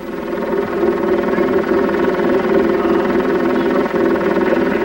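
A steady drone with many evenly stacked overtones, fading in at the start and then holding level.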